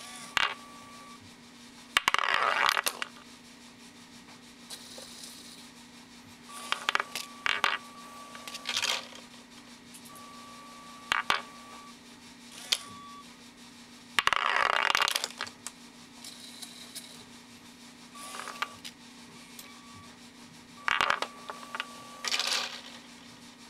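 Lego string pinsetter for five-pin bowling working through its cycle: small plastic pins and Lego parts clattering and clicking, with two longer clatters about two seconds in and just past the middle. A steady low hum and an on-off high tone run beneath.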